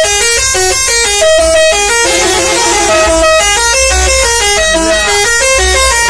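Bus 'telolet' horn, a multi-tone air horn playing a fast tune, loud. Its notes step up and down several times a second.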